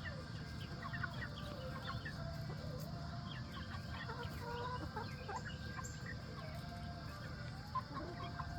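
A flock of chickens calling: many short, overlapping chirps and clucks, with young pullets among the hens, over a steady low background noise.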